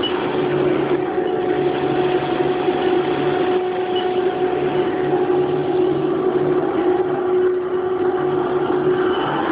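Haas CNC mill running, with a steady high whine that sets in just after the start and stops shortly before the end, over a lower hum that comes and goes in stretches.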